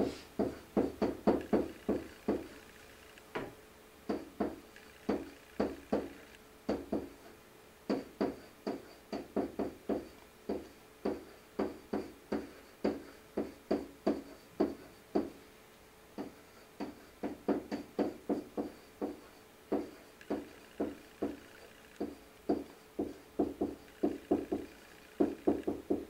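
Pen tapping and scraping on the hard surface of an interactive whiteboard during handwriting: irregular runs of quick knocks, several a second, broken by short pauses between words, over a faint steady hum.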